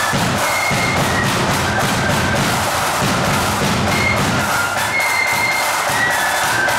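Marching flute band playing a tune: massed flutes carry a high melody over rattling snare drums and a steady bass drum beat.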